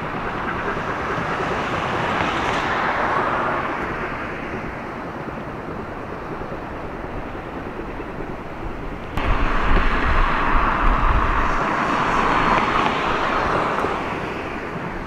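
Outdoor noise of road traffic, swelling and fading twice as vehicles pass. About nine seconds in it jumps suddenly louder, with wind buffeting the microphone in low rumbles.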